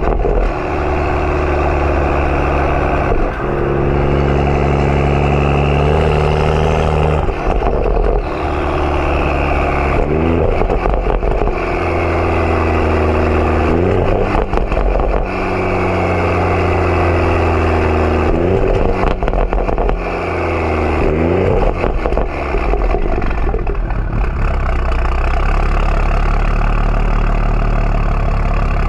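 BMW 335i's N55 turbocharged inline-six, running through a catless downpipe and M Performance exhaust, under way: the exhaust note repeatedly climbs and then drops back as it shifts through the gears. It settles into a steady low drone near the end.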